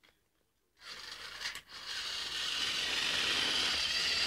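A second of silence, then a battery-powered toy train running on plastic track: a steady rattling, scraping noise that slowly grows louder.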